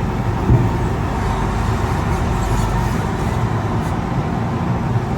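Sugar beet truck's engine running steadily with a continuous low rumble, with a single knock about half a second in.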